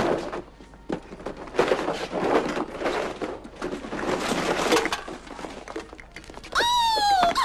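A brown paper bag rustling and crinkling as store goods are stuffed into it, with a thump at the start. Near the end a short high tone slides downward.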